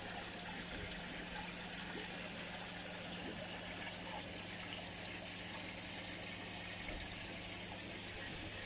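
Pond water splashing and trickling steadily from the filter returns, over a low steady hum from a pump.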